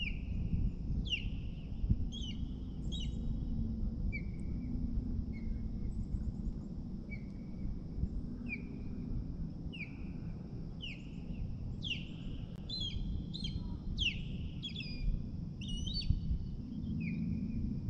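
A bird in a tree chirping repeatedly: a string of short, clear notes, many dropping in pitch, coming about once a second and busiest past the middle.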